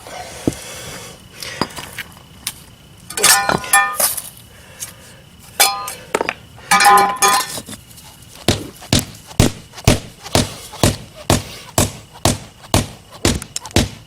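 Pavers clink against one another as they are handled, a few short ringing knocks. Then a rubber mallet pounds pavers down into their sand-and-cement bed, in a steady run of knocks about two a second over the last five or six seconds.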